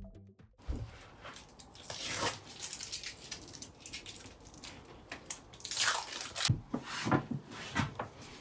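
Rustling and crackling of a rolled sheet of rubberised vinyl flooring being handled and unrolled on a plywood floor, in irregular sweeps with a few light knocks.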